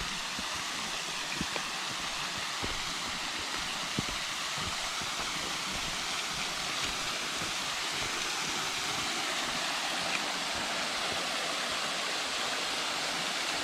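Waterfall running steadily into a pool: an even rush of falling water, with a few faint low bumps.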